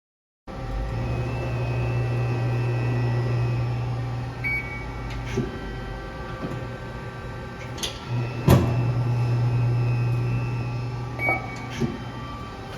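Amada RG-80 hydraulic CNC press brake running: a steady machine hum with a low drone that grows louder for two stretches of a few seconds each. Scattered mechanical clicks and one sharp knock come about eight and a half seconds in.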